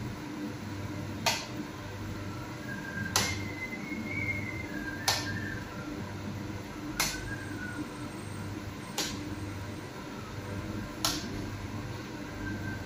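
Sharp clicks, evenly spaced about two seconds apart, over the steady hum of a fan or air conditioning.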